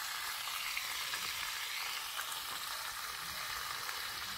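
Steady, even sizzling hiss of food frying in a pan.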